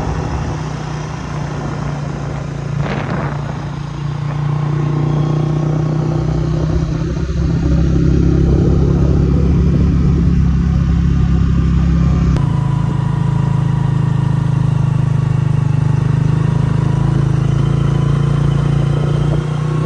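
Motorcycle engine running steadily at cruising speed while riding, with road and wind noise; the sound changes abruptly about twelve seconds in.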